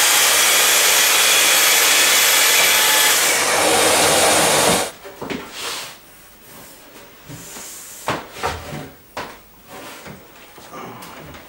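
Festool plunge-cut track saw ripping along its guide rail through a rough-sawn oak board, trimming off the waney edge and sapwood. The saw runs loud and steady for nearly five seconds, then stops abruptly, followed by scattered knocks of the rail and board being handled on the bench.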